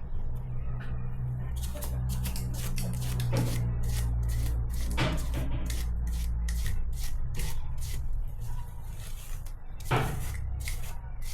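Household handling noises: a steady run of small clicks and knocks, with two sharper knocks about five and ten seconds in, over a low steady hum.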